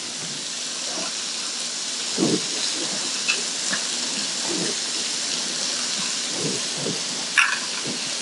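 Tofu frying in oil in a pan, a steady sizzle. A few soft knocks and light clicks sound over it now and then.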